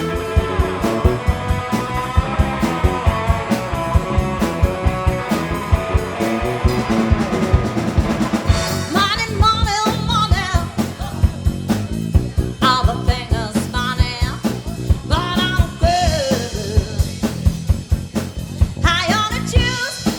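Live blues band playing, with a drum kit keeping a steady beat under bass and guitar. A wavering sung line comes in about nine seconds in.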